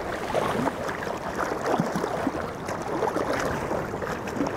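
Ocean water sloshing and splashing over a steady wash of wind and sea noise.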